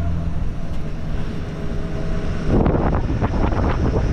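A vehicle engine running with a steady low hum, then a louder, rough, irregular noise starting about two and a half seconds in.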